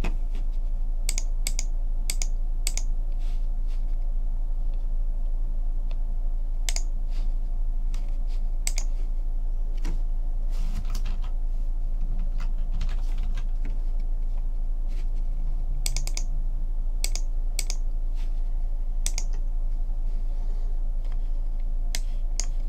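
Scattered clicks of a computer keyboard and mouse, often in quick pairs, over a steady low electrical hum.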